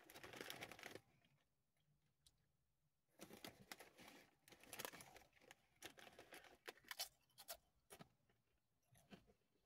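Faint crinkling and rustling of a foil Doritos chip bag as a hand rummages in it, in irregular small crackles mostly between about three and eight seconds in.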